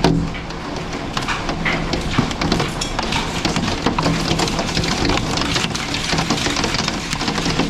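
Tornado wind blowing hard around a house, with a constant, irregular clatter of flying debris striking the window and walls.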